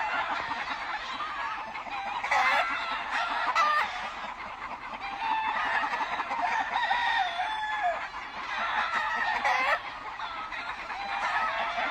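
Many gamecocks crowing over one another, one crow after another with no break, several of the long crows falling in pitch at the end.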